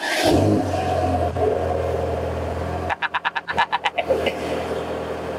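Mercedes-AMG GT Black Series twin-turbo V8 starting up: it catches with a loud flare, then settles into a steady fast idle. About three seconds in, the engine note breaks into a quick run of pulses for about a second before steadying again.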